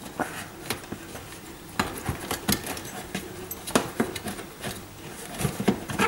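Irregular light clicks and knocks of plastic and metal parts being handled as a dishwasher's new water heater is fitted to its rubber hose with spring clips.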